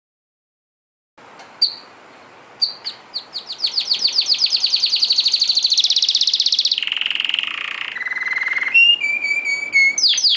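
Canary singing: a few separate chirps about a second in, then a fast run of repeated notes that speeds up into a trill, changing near the end to lower rolling trills and short whistled notes.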